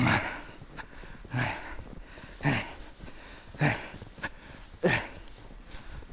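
A person breathing hard after exertion, five heavy, partly voiced exhalations about a second apart, each dropping in pitch.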